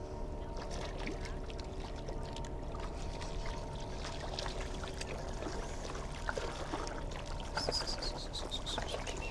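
A small tailor splashing in the shallows as it is reeled in, with water trickling and clicks from the tackle. A steady low engine hum fades out about halfway, and a short run of high falling chirps comes near the end.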